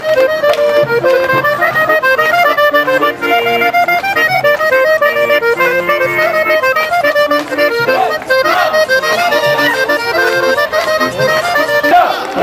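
Accordion playing a quick Balkan folk tune, with a violin alongside. Near the end it cuts off abruptly and gives way to crowd voices.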